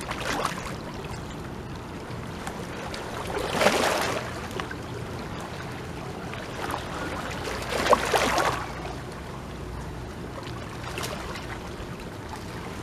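Small waves washing and lapping against shoreline rocks, with two louder splashing swells about four and eight seconds in, over a steady low rumble.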